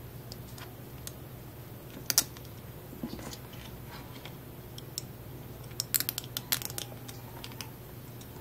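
Small 3D-printed plastic parts clicking and tapping against each other as they are handled and fitted together by hand. A sharp double click comes about two seconds in and a quick run of clicks around six seconds in, over a steady low hum.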